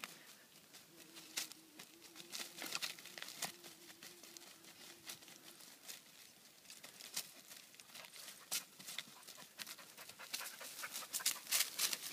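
Irish red and white setter panting as it works through leafy undergrowth, its moving body brushing and crackling the plants and twigs. The rustling grows denser and louder near the end as the dog comes close.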